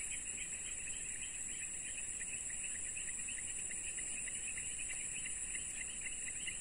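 Insects chirping: a steady high-pitched drone with a rapid, evenly pulsing chirp beneath it.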